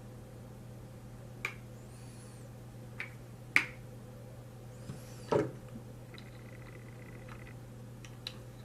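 A handful of sharp clicks and taps as small Hi-Point pistol parts are handled and greased during reassembly, the loudest about three and a half seconds in, over a steady low hum.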